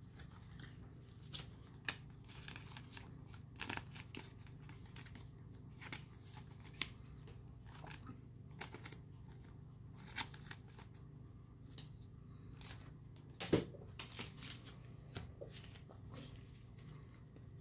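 Faint, scattered clicks and short rustles of a Pokémon trading card and a thin clear plastic sleeve being handled as the card is slid into the sleeve, over a low steady hum.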